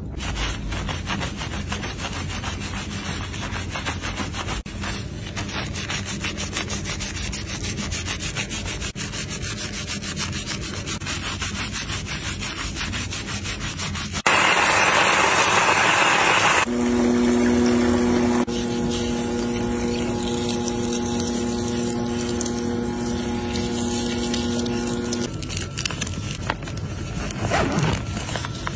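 Plastic-gloved hands scrubbing a thick shampoo lather through wet hair: fast, even rubbing and squishing of foam. About halfway through comes a loud hiss lasting a couple of seconds, followed by a steady hum for several seconds.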